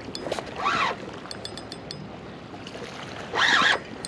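Spinning reel's drag buzzing in two short bursts, its pitch sweeping up and down, as a hooked butterfly ray pulls line against it, with a quick run of clicks in between.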